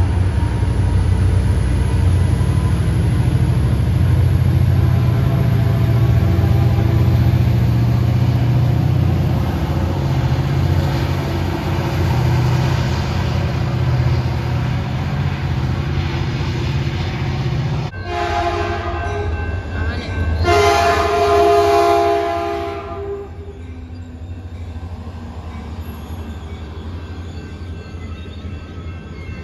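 Caltrain diesel commuter train pulling out, its locomotive running with a loud, steady low rumble. After a sudden break about 18 seconds in, a train horn sounds two blasts, then train cars roll by more quietly.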